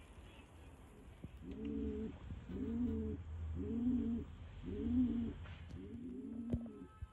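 Domestic pigeon cooing in a repeated series, about one coo a second, starting about a second and a half in. A sharp tap near the end.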